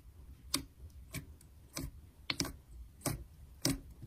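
Soft slime being squeezed and pressed by hand, giving short sharp clicks and pops, about seven of them, roughly one every half second.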